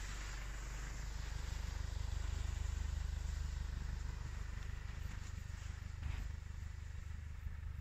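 Mercedes-AMG GLC 43's twin-turbo V6 engine running at low speed as the SUV drives through deep snow, a steady low drone over a hiss. The engine is louder from about two to four seconds in as the car passes close, then eases off as it moves away.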